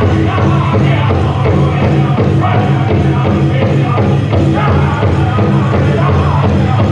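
A powwow drum group singing a men's chicken dance song, voices over the steady beat of the big drum.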